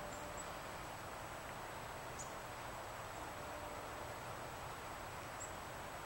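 Quiet outdoor ambience, mostly a steady hiss, with three brief, very high, faint chirps from small birds.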